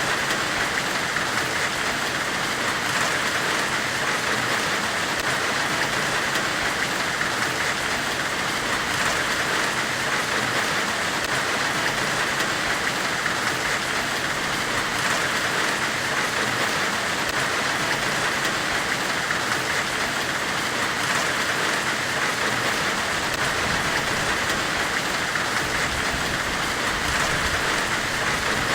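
Steady hissing white noise, even and unbroken, with no strikes or tones and the hiss strongest in a bright band in the upper middle.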